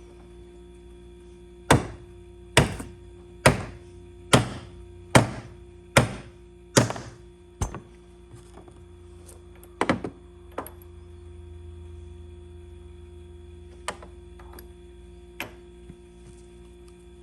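Hammer blows on a Lee Loader die while loading a .38/.357 Magnum cartridge: seven sharp, evenly spaced strikes a little under a second apart, then a few lighter knocks and taps. A steady low hum runs underneath.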